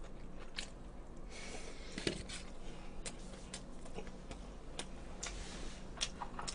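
Faint close-miked eating sounds: a person chewing a mouthful of rice, with scattered small clicks and smacks, over a low steady hum.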